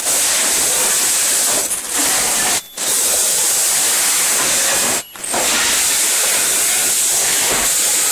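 Running heat transfer cup printing machines on a factory floor: a loud, steady hiss. It breaks off briefly twice, about two and a half seconds in and again at about five seconds.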